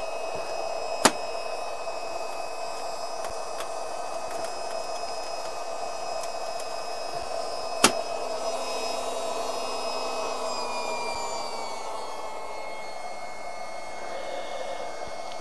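Small electric blower fan of a homemade wood-chip smoke generator running with a steady hum and hiss, its pitch sliding down slightly about ten seconds in. Two sharp clicks cut through it, about a second in and again near eight seconds.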